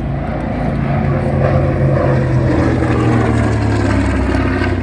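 Grumman Avenger's Wright R-2600 Cyclone radial engine running as the aircraft flies past. It grows louder about a second in, and its pitch drops through the second half as it passes.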